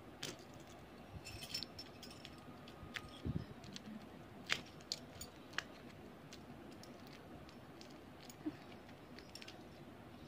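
Faint scattered clicks and crinkles of a small plastic-wrapped Beyblade part being handled and picked at to open its tight packaging.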